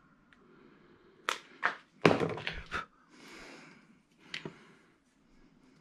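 Sharp clicks and knocks of a snowblower's recoil pull-starter being worked by hand, with a loud rattling clatter about two seconds in, a short rustle after it and one more click near the end.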